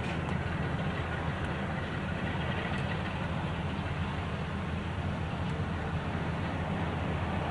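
Diesel locomotive engine running steadily with a low, even rumble.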